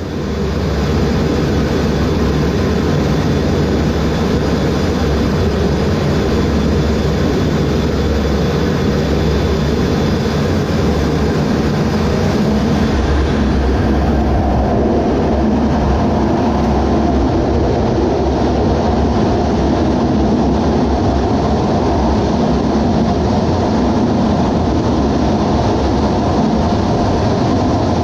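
Jet engines running loud and steady during carrier flight-deck launch operations, a dense rumble with no breaks; the hiss thins a little about halfway through.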